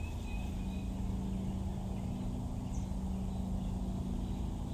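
A steady low hum with an even background noise underneath, unchanging throughout.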